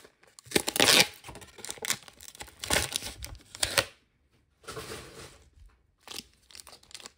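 Trading card pack wrappers being torn open and crinkled by hand, in several bursts of tearing and rustling, the loudest at about a second in and around three seconds in.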